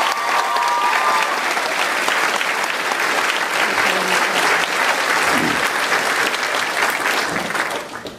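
Audience applauding, many hands clapping together at a steady level, then dying away near the end.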